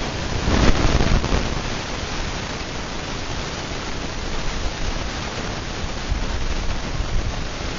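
Hunter Low Profile ceiling fan running, heard as a steady rushing hiss of moving air with uneven low buffeting, a little stronger about a second in.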